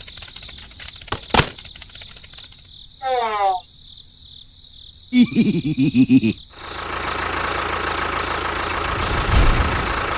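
A few sharp clicks, a short falling pitched tone and a brief warbling sound, then a small motor running with a steady even whirr through the last few seconds.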